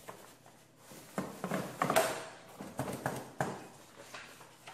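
Jogging stroller canopy being fitted onto the frame by hand: fabric rustling with a run of plastic knocks and clicks, loudest about two seconds in.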